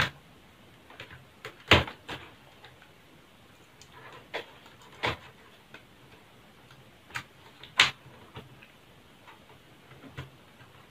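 Irregular sharp plastic clicks and taps as a laptop keyboard is handled and fitted into its palm-rest frame, with two louder snaps, one a little under two seconds in and one about three-quarters through.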